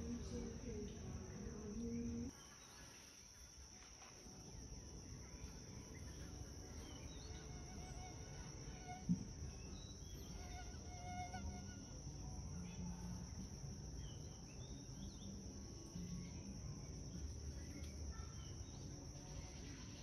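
Insects calling in one steady high-pitched drone, with faint short bird chirps scattered through and a low background rumble. The background drops in loudness a couple of seconds in, and a single sharp click sounds about nine seconds in.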